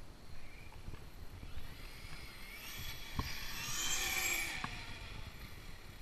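TR-MT8E RC monster truck with a 980 kV brushless motor on 6S running on pavement: a high whine from the motor and gears swells as it passes, loudest about four seconds in, then fades.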